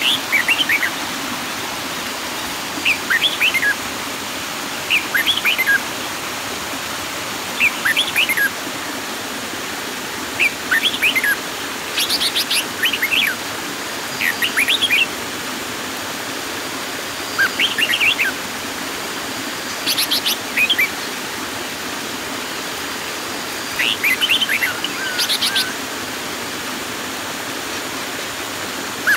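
A small waterfall pours over rock into a pool with a steady rush of water. Over it, a bird sings short chirping phrases about every two to three seconds.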